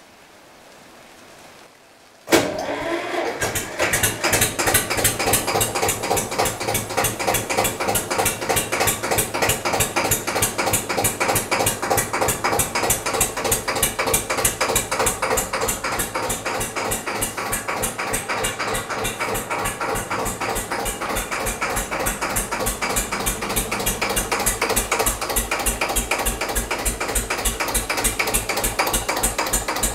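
Hanomag R16 tractor's diesel engine starting abruptly about two seconds in, then running at a steady idle with an even, rapid beat.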